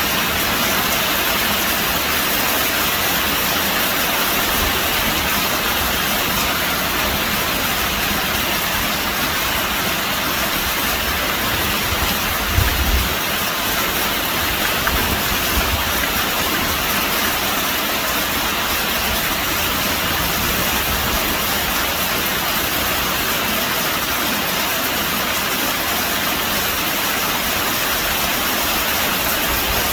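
Very heavy rain pouring down, a dense, steady hiss. A brief low thump stands out about twelve seconds in, with a few smaller ones soon after.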